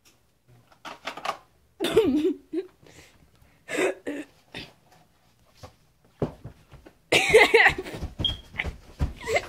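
Boys' short excited shouts and exclamations, then a loud flurry of thumps and knocks mixed with shouting in the last couple of seconds as a broom is jabbed at a rat along the floor.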